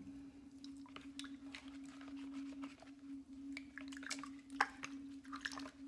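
Small wet clicks, drips and squishes of water and clay slip around a potter's wheel as the potter handles the wet clay. A steady low hum runs underneath.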